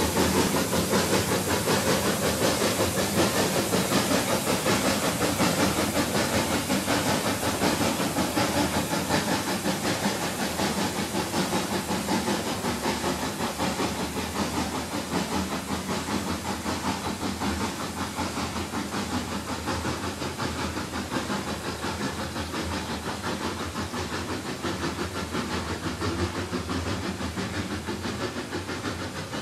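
1931 Sentinel DG6P steam waggon, rebuilt as a bus, driving under steam: its two-cylinder double-acting steam engine beats out a fast, even chuff over a steady hiss of escaping steam. The sound fades slowly as the bus pulls away.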